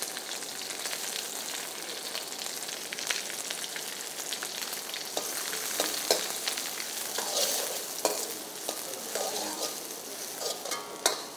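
Chopped onions sizzling and crackling in hot oil in a pan, stirred with a steel ladle that scrapes and clicks against the pan now and then. The onions are at the start of being sautéed.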